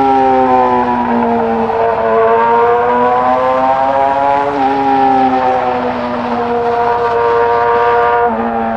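2020 Yamaha R6's 599 cc inline-four running at high revs under way. The pitch sags, climbs again for a couple of seconds, eases slowly down, then jumps up sharply about 8 seconds in. Wind and road noise run under it.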